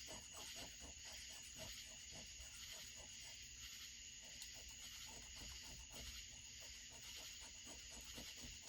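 Near silence: faint, steady chirping of crickets in the background, with faint quick rhythmic rubbing strokes for the first few seconds and again near the end.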